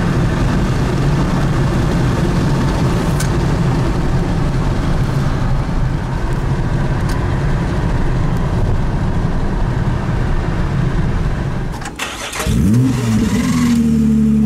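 Steady tyre and wind rumble inside a Tesla Model S cruising at about 100–125 km/h, with no engine sound from the electric car. About twelve seconds in, a Lamborghini Gallardo's V10 starts: the revs flare up and drop back, then the engine settles into a steady idle.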